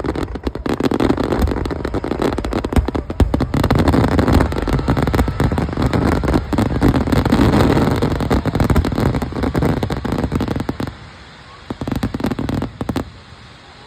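Fireworks going off close by in a dense, continuous barrage of bangs and crackles. It thins out about eleven seconds in, with a last short spell of crackling before dying down.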